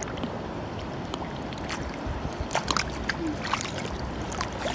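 Shallow creek water running over rock, with small splashes and drips as hands dabble in it.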